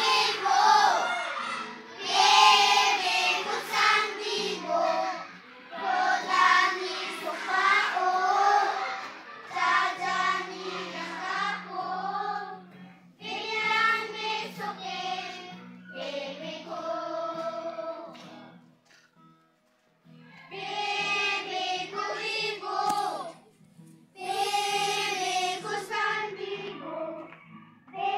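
A group of children singing a song together in unison, in phrases of a few seconds with short breaks between lines. There is a brief pause of near silence about two-thirds of the way through before the singing starts again.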